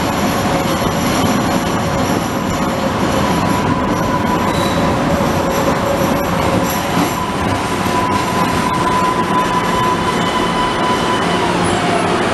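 MBTA Green Line light-rail train running into an underground station, a loud steady rumble of wheels on rail with a sustained high squeal through most of it.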